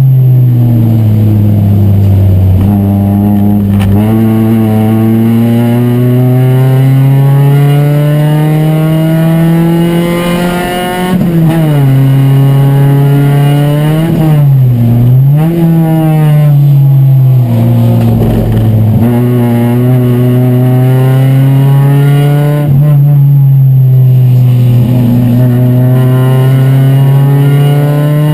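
Chevrolet Chevy Superturismo race car's four-cylinder engine heard from inside the cabin, pulling hard with its pitch climbing over long stretches and dropping sharply four or so times as the driver shifts gear or lifts for corners.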